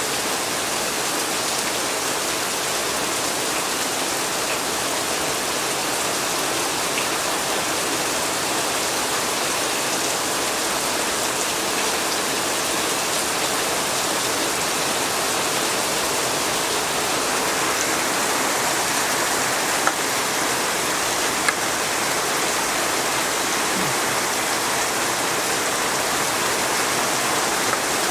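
Heavy rain falling steadily, a continuous even hiss. Two brief sharp clicks stand out about two-thirds of the way through.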